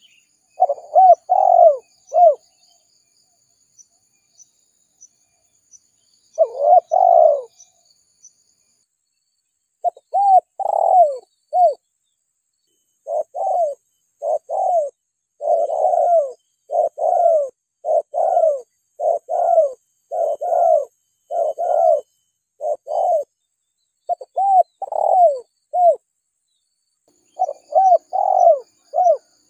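Spotted dove cooing in short phrases of coos, with a long run of coos through the middle. It is a lure call used to draw wild spotted doves.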